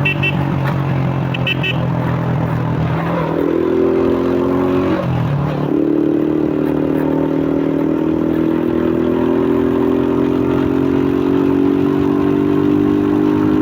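2001 Suzuki Fiero motorcycle engine, breathing through a K&N pod air filter, pulling under way. It holds steady at first, then the revs climb, drop sharply at a gear change about five seconds in, and rise slowly and steadily again.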